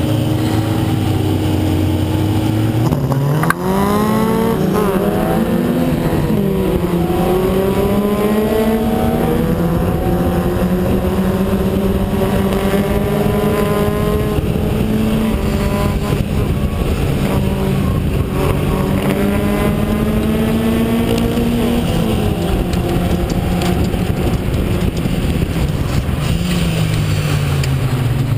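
Locost club race car's engine heard onboard, held steady on the starting grid, then revving sharply at the launch about three seconds in. It accelerates up through the gears, the pitch climbing and falling back at each shift, with more drops near the end.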